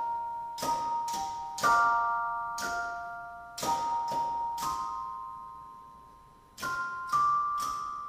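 Tuned chimes struck by the solenoids of an automatic player, ringing out a slow melody. Each note is a sharp strike followed by a clear, long-ringing tone that slowly fades, about one note a second with some notes sounded together, then a gap of about a second and a half before three quicker notes near the end.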